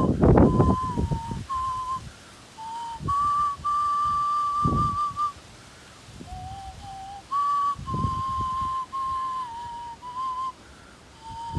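Small Māori flute (taonga pūoro) playing a slow melody of clear, single notes that step between a few pitches, some held long with a slight waver. Breathy puffs into the flute and the microphone come between phrases. The tune is the waiata that accompanies the karakia.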